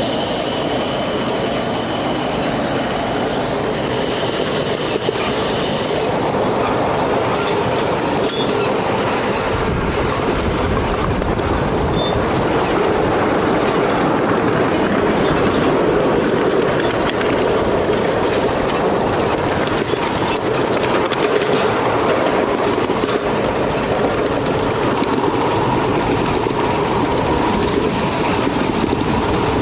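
Ride-on miniature live-steam train running on its track: a loud steam hiss that cuts off about six seconds in, then the steady rumble and clatter of the wheels on the rails.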